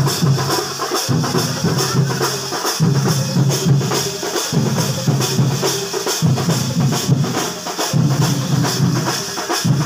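Festival drum troupe playing a loud, steady, driving beat of repeated drum strokes.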